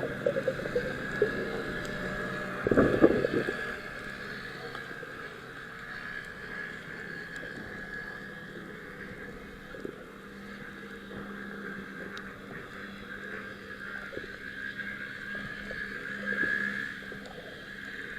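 Motorboat engine running steadily with a low hum and a higher whine, and a brief loud thump about three seconds in.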